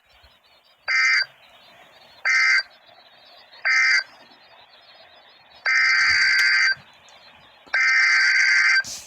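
Emergency Alert System SAME data bursts over weather radio: three short, identical buzzy bursts, the end-of-message code that closes the previous alert. These are followed by two longer bursts that begin the header of the next alert.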